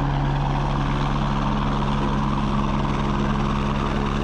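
Helicopter running steadily on the pad: an even engine and rotor drone with a held hum underneath.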